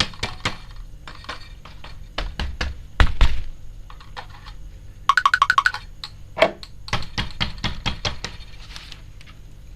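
Handling noises from toys and bags: a run of light clicks and knocks, a heavier thump about three seconds in, and a quick string of about eight short pitched pulses around five seconds in.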